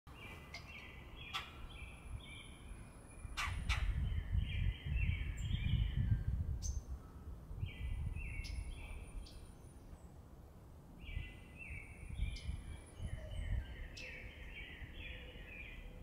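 A bird singing three songs of quick repeated notes a few seconds apart, with a low rumble underneath that is strongest in the first half and a few sharp taps.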